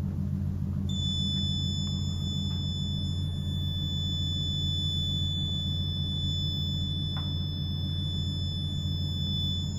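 Piezo buzzer of an Arduino contactless doorbell giving one continuous high-pitched tone that comes on about a second in and holds steady, over a steady low hum.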